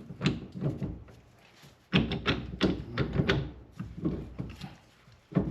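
Metal parts and tools clinking and knocking during work on a car's rear wheel hub assembly, a few at a time at first, then a quick run of knocks a couple of seconds in.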